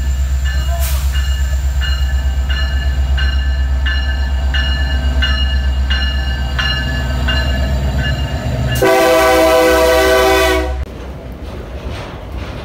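Diesel freight locomotive passing close by: a steady deep engine rumble with a regular high clicking about every 0.7 seconds. About nine seconds in it sounds its horn loudly for about two seconds, then the container wagons roll past more quietly.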